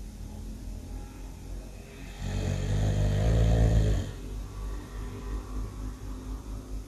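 Loud snoring: one long snore starting about two seconds in and lasting about two seconds, with softer low snoring breaths before and after it.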